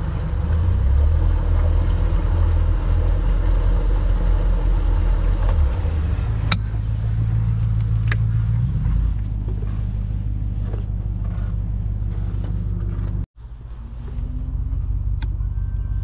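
Boat's outboard motor running steadily at low speed, easing back to a lower, quieter idle about nine seconds in. The sound drops out for an instant near the end, then the engine runs on, with a couple of faint clicks in the middle.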